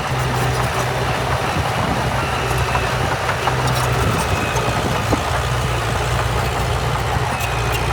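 Heavy diesel engine of earthmoving machinery running steadily, with a low, even hum and a few faint clicks.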